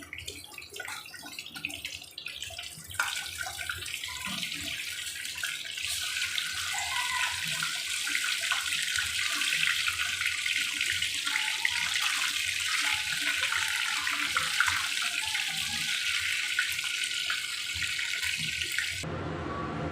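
Hot oil sizzling in a frying pan where bhola fish has been frying, a steady crackling hiss that sets in about three seconds in and stops abruptly near the end.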